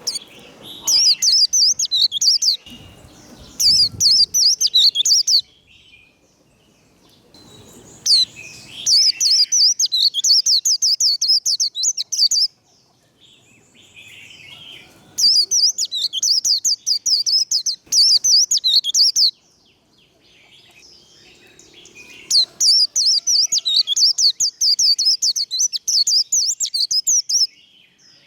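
White-eye singing its rapid, high twittering 'líu' song in four long bouts of about four to five seconds each, with short pauses between.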